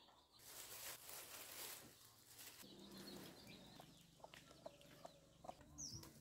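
Faint farmyard ambience: chickens clucking quietly, a soft hiss in the first couple of seconds, and a single high bird chirp near the end.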